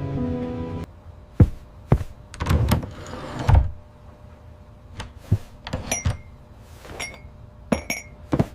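Gentle music stops about a second in, followed by a run of separate knocks and thumps and light clinks, the later ones ringing briefly like small hard objects being set down or handled.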